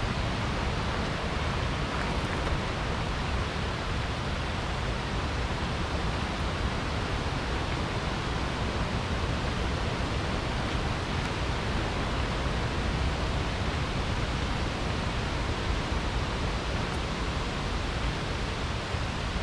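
Steady rushing of water from a waterfall and river, an even noise that never breaks or changes.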